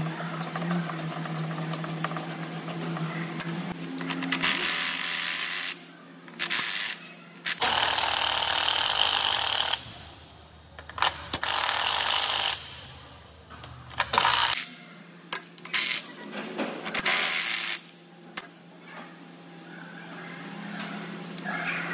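Cordless impact wrench run in repeated short bursts, each half a second to two seconds long, spinning out the bolts of a Toyota Camry's automatic transmission oil pan. A steady low hum lies underneath.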